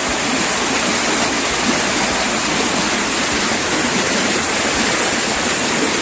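Steady, loud rush of a waterfall, heard from its top edge as the water pours over a rock lip and drops about 40 feet into a pool.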